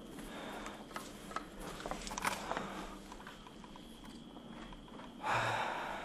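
Handling noise as objects are picked up: scattered light clicks and knocks, then a short, louder burst of noise about five seconds in.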